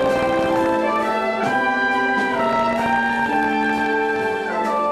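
Orchestral music with brass and strings, playing held chords that change every second or so.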